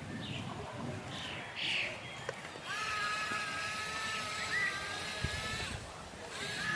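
A small electric motor whines steadily for about three seconds, starting a little under three seconds in, after a few short chirps.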